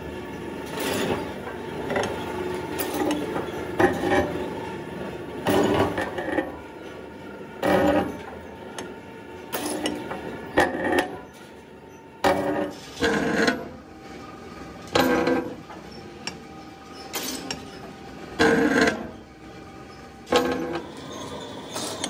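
Metal being struck again and again, each blow ringing briefly, at an uneven pace of roughly one every one to two seconds.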